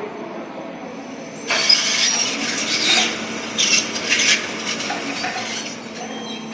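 Elevator drive unit running with a harsh rubbing, rasping noise over a steady hum and a high whine. The rasp comes in about a second and a half in, surges several times, and eases off near the end. This is the strange noise the drive unit is making, a sign of a fault in it.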